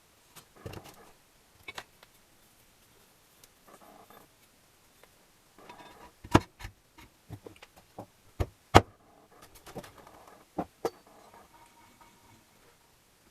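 Small metal engine parts and tools being handled on a bench during engine assembly: scattered clicks and knocks with light rustling between them, two sharp knocks in the middle.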